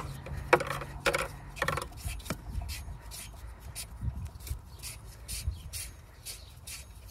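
Gloved hand turning an Audi TT power steering pump's ribbed pulley by hand with the drive belt off: three louder rubbing squeaks in the first two seconds, then light ticking as the pulley keeps turning. The pump is being turned slowly to draw fluid through without aerating it, while the system is bled.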